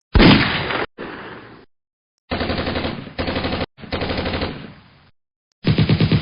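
Gunfire sound effects: a loud single shot at the start, then several bursts of rapid automatic machine-gun fire, each cut off by a short silence.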